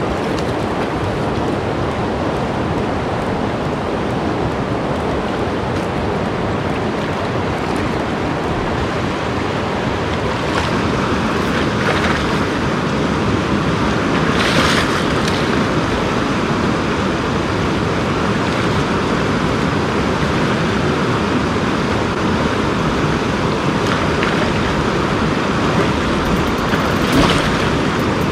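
The Kern River rushing over and around boulders, a steady loud sound of flowing water. A few short splashes stand out, the loudest about halfway through and another near the end, as a person moves in the shallow current.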